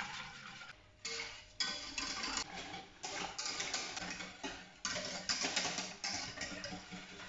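Wire whisk scraping and clicking against a stainless steel saucepan as flour is whisked into water, in uneven strokes. Background music plays underneath.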